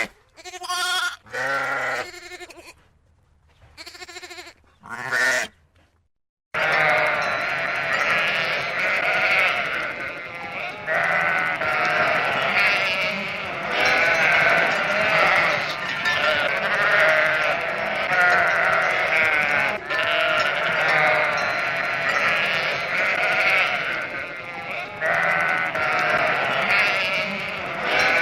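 Goats bleating: a few single bleats with pauses between them, then from about six seconds in many goats bleating at once in a continuous, overlapping herd chorus.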